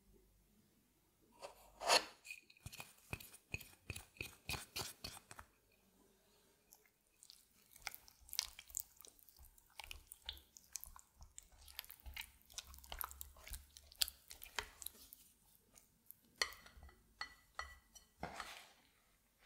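Silicone spatula stirring thick yogurt with olive oil and dill in a glass bowl: quick wet squelching and scraping strokes in runs, with light knocks against the glass. The sharpest knock comes about two seconds in.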